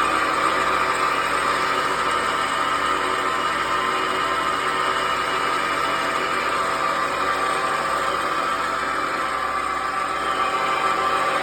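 1994 Subaru Vivio running with a steady grinding noise, unchanging throughout; the cause of the grinding is unknown.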